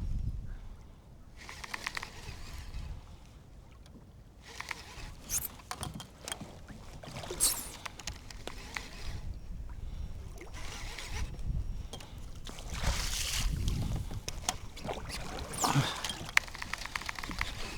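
Water slapping and sloshing against a kayak hull, with wind buffeting the microphone as a low rumble and scattered small clicks and knocks throughout.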